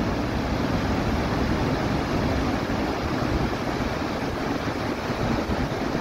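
Steady roar of a large waterfall, water rushing and crashing into the gorge below.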